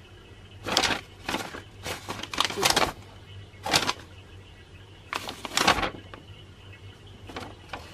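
Paper rustling in a series of short, irregular bursts as a folded instruction manual is handled and opened.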